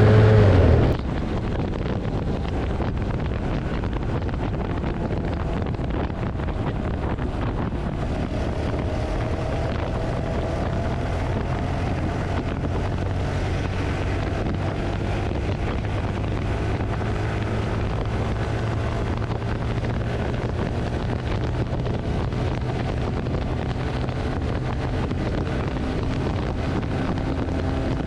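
Motorcycle riding at a steady speed: engine hum under heavy wind noise buffeting the microphone.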